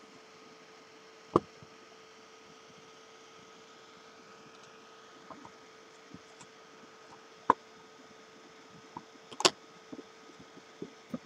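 A faint steady hum and whine, broken by a few irregular sharp clicks and knocks as a hand handles a small homemade circuit board: one about a second in, another past the middle, then a quick cluster of clicks.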